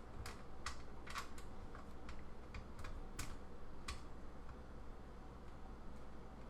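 Small sharp clicks and taps of a screwdriver working a screw into a motherboard mount in a computer case, about ten irregular clicks that thin out after about four seconds.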